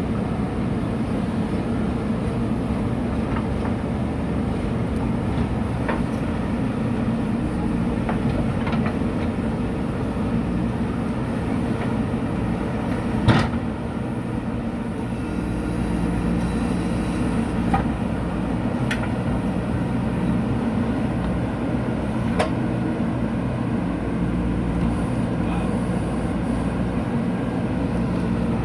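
JCB 3DX backhoe loader's diesel engine running steadily while digging soil, with a few sharp knocks over it, the loudest about halfway through.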